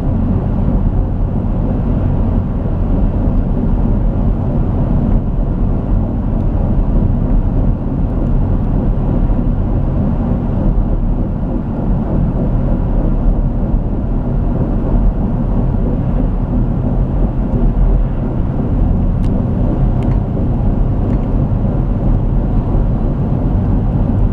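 Van driving at a steady road speed, heard from inside: a loud, even rumble of tyres and drivetrain with a low steady drone. It cuts off suddenly at the end.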